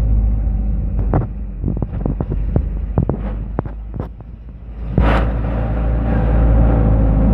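Truck engine running, heard from inside the cab, with a series of sharp knocks and rattles over the first few seconds while the engine sound dips; about five seconds in the engine comes back up louder and steadier.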